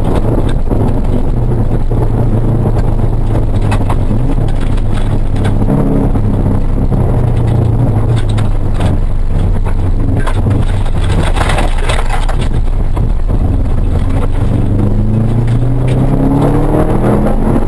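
Rally car engine heard from inside the cabin, revving hard and easing off as the car is driven flat out through the gears, its note climbing steadily under acceleration near the end. A cluster of sharp cracks sounds about two-thirds of the way in.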